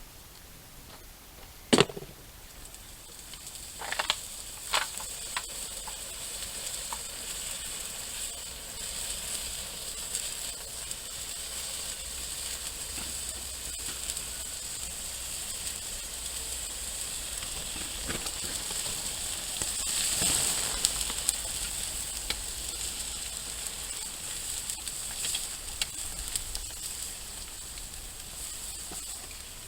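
Thermite burning on top of a microwave oven with a steady sizzling hiss that builds to its loudest about twenty seconds in, then eases off. A sharp crack comes about two seconds in, with a few smaller snaps a couple of seconds later.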